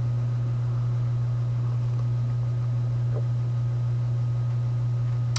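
A steady low hum throughout, with faint sounds of sipping from a ceramic mug and a short click near the end.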